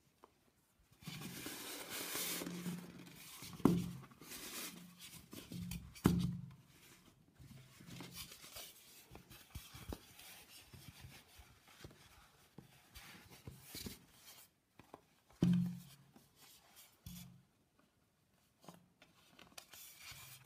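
Handling noise as a knitted hat with a cotton jersey lining is pulled onto a styrofoam head: fabric rustling and rubbing against the foam. Three sharp knocks stand out, about four and six seconds in and again after fifteen seconds.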